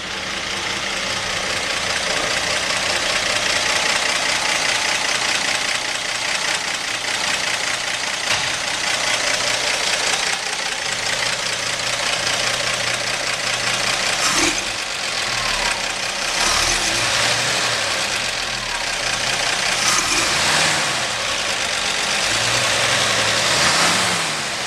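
Stock 1959 GMC pickup's inline-six engine idling steadily.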